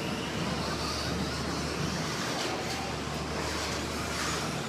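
Radio-controlled stock-class trucks racing on a dirt track, heard as a steady wash of small motors whining and tyres on dirt, with faint passes that swell and fade. A low steady hum runs underneath.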